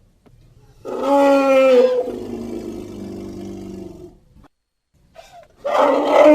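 Elephant trumpeting: a loud, brassy pitched call about a second in that sinks into a lower, fading tail, then after a short silence a second loud trumpet begins near the end.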